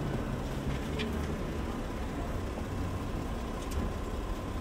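City street ambience: a steady low rumble of traffic, with a faint steady high tone and a couple of light clicks.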